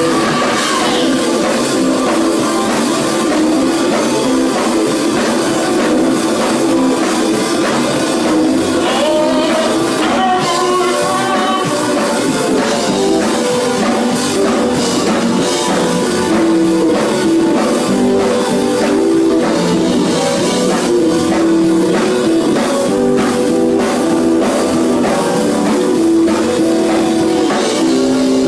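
A live gospel band plays an up-tempo passage with drum kit and guitar, with some held notes and faint singing in the mix.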